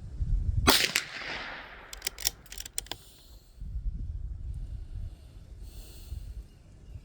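.22 LR bolt-action rifle firing a single shot about a second in, with a short ringing tail, followed by a quick run of clicks as the bolt is worked. Wind buffets the microphone with a low rumble throughout.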